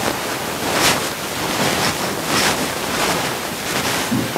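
A loud, steady rushing hiss, like surf, that swells and eases every second or so.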